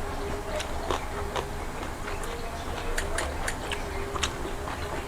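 Eating sounds: irregular small clicks and smacks of chewing and of food being handled on a plate, over a faint steady low hum.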